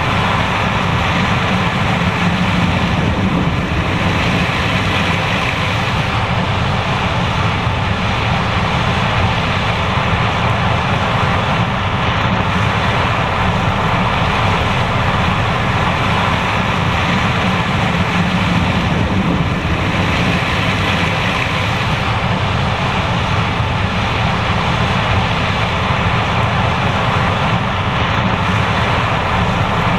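John Deere S780 combine running while harvesting corn: a loud, steady, unchanging machine noise.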